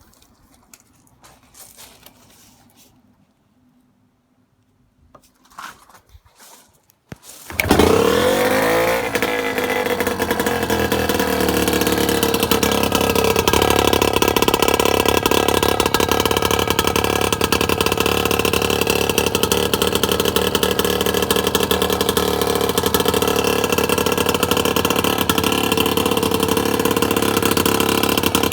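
A few faint knocks and clicks, then about seven seconds in a British Seagull 102 Series outboard motor's single-cylinder two-stroke engine starts suddenly, its revs falling back over a couple of seconds before it runs steadily.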